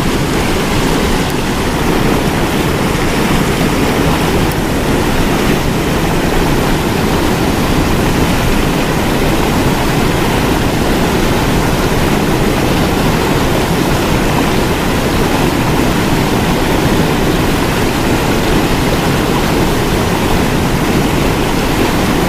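Whitewater from a dam spillway rushing and churning over rocks close by, a loud, steady rush of water with no let-up.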